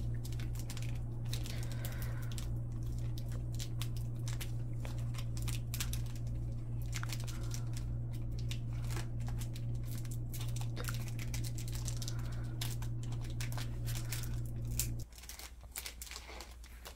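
Trading card pack wrappers crinkling and tearing as they are opened by hand, a run of sharp crackles. Under it a steady low hum that cuts off abruptly about fifteen seconds in.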